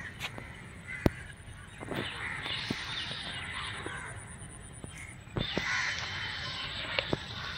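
Spirit box scanning radio static: waves of hiss with scattered clicks and a thin steady high whine that stops about five seconds in.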